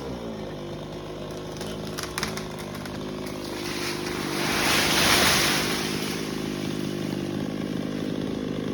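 Chainsaw engine dropping back from a cutting rev and running steadily at a low, even idle. There are a few sharp clicks about two seconds in, and a brief rush of hissing noise swells up around the middle.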